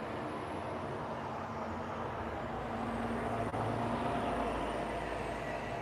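Road traffic passing on the road below: a box truck and then a car go by, a steady noise with a low rumble that swells about three to four seconds in.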